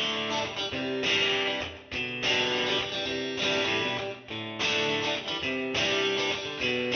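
Background music led by a plucked guitar playing a series of notes and chords.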